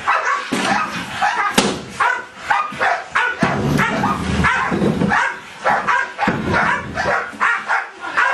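A dog barking repeatedly in short bursts, with a sharp knock about a second and a half in.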